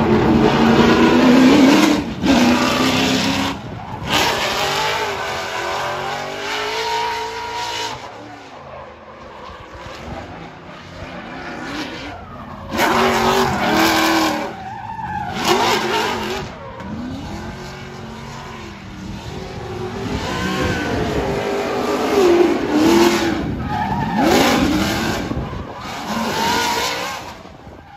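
Ford Mustang drift car sliding sideways: the engine revs rise and fall in repeated loud surges while the rear tyres squeal and skid, spinning up smoke.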